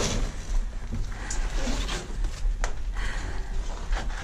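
Scuffing and rustling of shoes, clothing and a backpack against rock as climbers work up a narrow slot, over a steady rumble of camera handling, with two sharp knocks about a second and a half apart.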